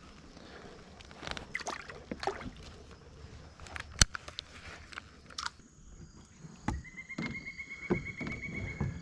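Scattered knocks, clicks and rattles of handling in a small boat, with one sharp click about four seconds in. Near the end an insect starts a steady, rapid high trill.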